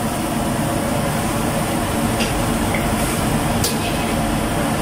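Steady loud roar of a high-pressure gas wok burner running at full flame, with a couple of light clinks of a metal ladle against the wok.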